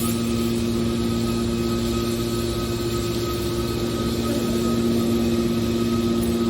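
Hydraulic ferrous scrap baler's power unit running, a steady hum with a couple of held tones.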